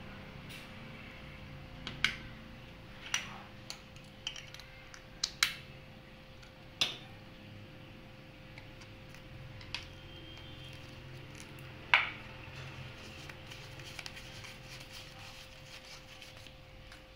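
Hard objects being handled: about eight scattered sharp clicks and clinks, several with a short ring, over a steady faint hum.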